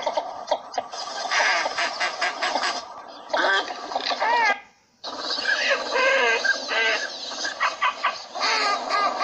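Northern shoveler ducks calling: a dense run of rapid, overlapping nasal calls, repeated notes and short rising-and-falling cries, with a brief break of about half a second midway.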